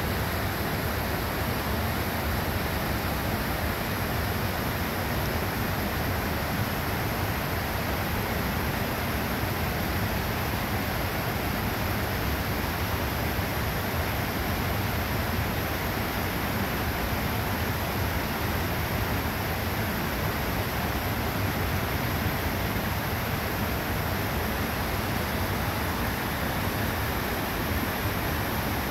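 Rocky creek rapids and a waterfall rushing steadily, an even wash of water noise.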